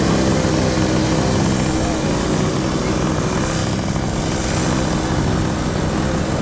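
Small gasoline engine running steadily at idle, a loud even drone.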